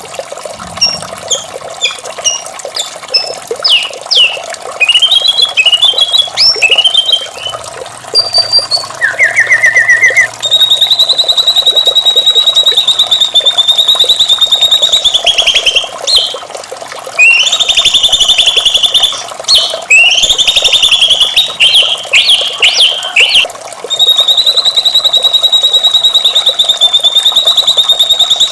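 White-rumped shama singing: varied whistles and quick notes, then long rapid trills with short choppy phrases between them, over a steady rush of running water.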